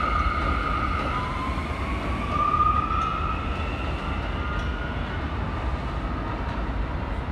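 R179 subway train accelerating away from the station: its propulsion whines in several tones that glide upward in pitch in steps, over a steady low rumble from the wheels on the rails.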